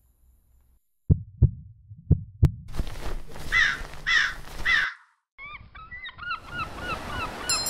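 Sound-effect sequence: a heartbeat of two double thumps, then three harsh raven caws, then a run of short repeated gull cries over a steady rush of noise.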